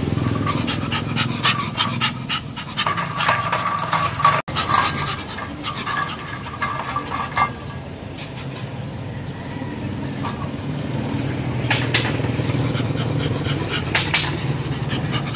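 Small dog panting fast in excitement, with scattered sharp clicks and rattles of its wire crate as it paws and moves about.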